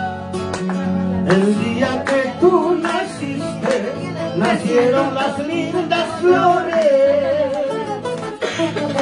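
Acoustic guitar strummed and plucked while a singer carries a wavering melody over it.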